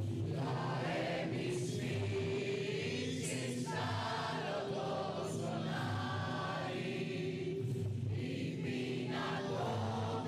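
A chorus of men's and women's voices singing a song together, continuously and at an even level.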